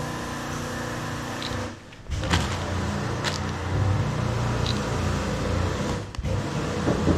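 A steady mechanical hum runs throughout. About two seconds in come two sharp clicks a second apart, a phone camera's shutter sound as the seal kit is photographed.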